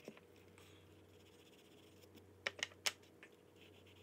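A few light, sharp clicks from oil pastel sticks being handled, with a quick cluster of three or four about two and a half seconds in, over a faint steady hum.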